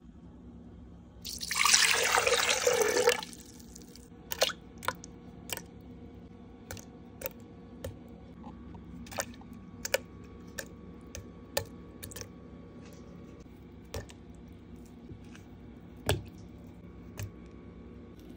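Liquid poured into an empty plastic blender jar for about two seconds, then a string of separate light knocks as strawberries and pieces of banana are dropped into the jar one at a time.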